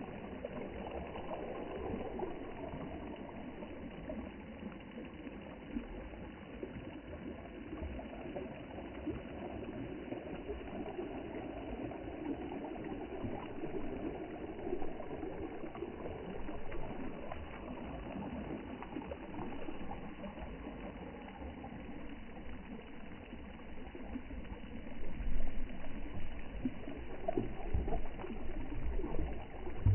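Sea water washing and lapping in a steady rush, growing louder with low thumps in the last few seconds.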